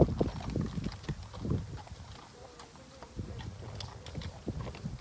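Horse's hooves thudding on grass turf as it moves past, a quick run of beats that are loudest in the first second and a half, then fading as the horse moves away.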